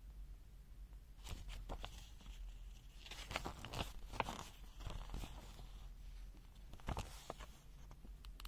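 A handheld digital multimeter being handled, with its rotary dial and buttons worked: scattered clicks and crackly scraping in several bunches and no beep.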